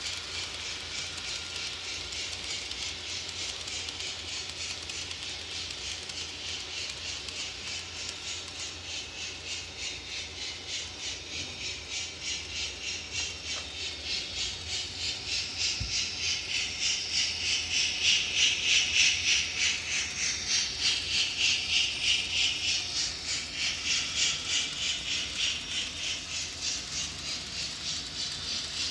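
Model train with a DCC sound decoder running on the layout: a fast, even, hissing beat from a small speaker, growing louder about halfway through, peaking around two-thirds of the way in and easing off again.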